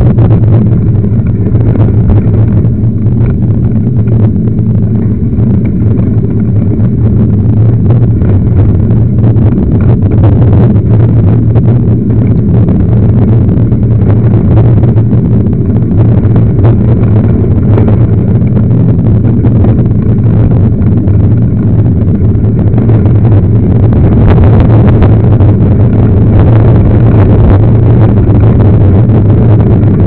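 Loud, steady wind rumble on the microphone of a camera riding on a moving mountain bike, with frequent small knocks and rattles from the bumpy dirt road.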